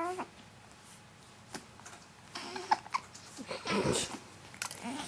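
Babies making short coos and squeals, one rising in pitch near the end, with a few sharp little clicks in between and a longer breathy squeal a little before the end.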